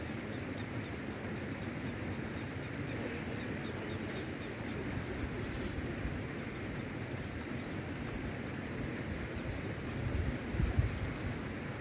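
Steady outdoor background noise with a constant high-pitched hum, and wind buffeting the microphone in low rumbles about ten seconds in.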